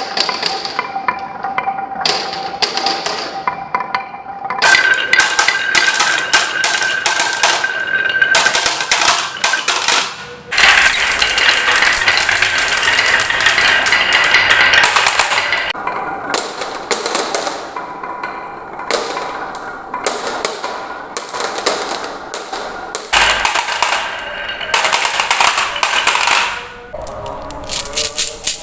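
Marbles rolling and clattering down a marble run, a dense stream of rapid clicks and rattles from many marbles hitting track pieces and each other, with some ringing tones underneath. The sound changes abruptly every few seconds as different track sections come in.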